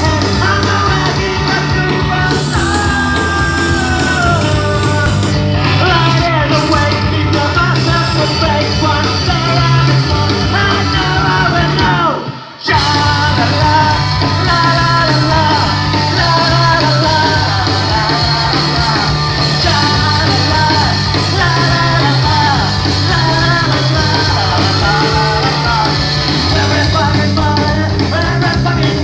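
Rock band playing live, with a lead singer over the band; the sound cuts out for a split second about halfway through.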